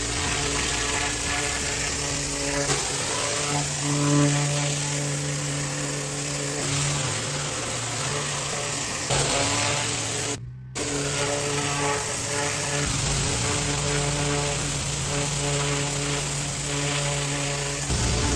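Pressure washer running steadily, its engine humming under the loud hiss of the water jet on concrete. The sound cuts out briefly about ten seconds in.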